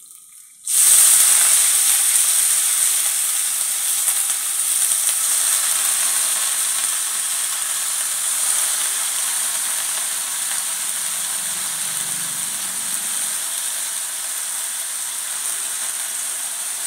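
Washed amaranth leaves hitting hot oil in a kadhai, setting off a loud sizzle. It starts suddenly about a second in and slowly dies down.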